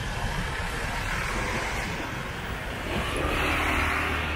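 A motor vehicle passing close by in street traffic. Its engine hum and noise swell to loudest about three to four seconds in, over a steady traffic din.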